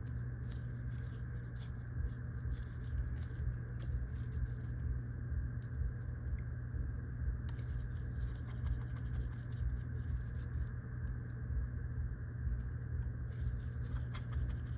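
Faint light clicks and scratches of an iPhone display being pressed into its frame, side by side, over a steady low hum.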